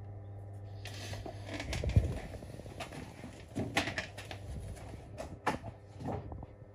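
Irregular rustling, clicking and knocking of things being handled, with a single thump about two seconds in, over a steady low electrical hum.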